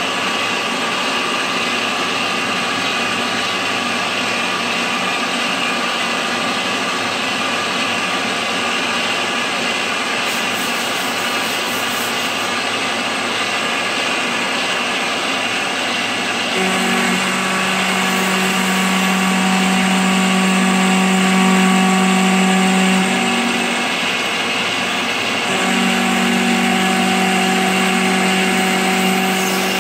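CNC milling machine cutting a pocket in cast iron with an end mill: steady machining noise. About halfway through a steady hum comes in, drops out briefly, then returns near the end.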